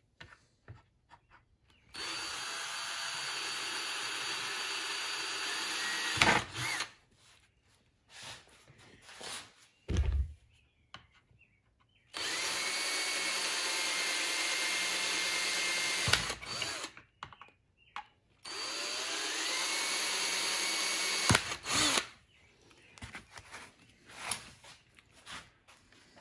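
Ryobi cordless drill boring 11/64-inch holes through a thin plastic hubcap. It runs in three separate bursts of about three to four seconds each, each starting with a rising whine. Sharp knocks come as the drill finishes and is handled, with a thump between the runs.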